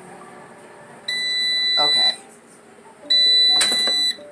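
Air fryer oven's control panel beeping: two long, steady, high-pitched electronic beeps of about a second each, with a brief rustle of handling during the second.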